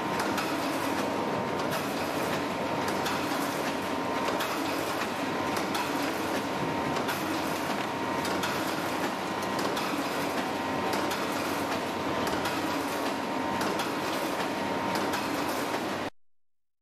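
Boleto sea bream gutting machine running: a steady mechanical clatter with a constant whine and scattered clicks, cutting off suddenly near the end.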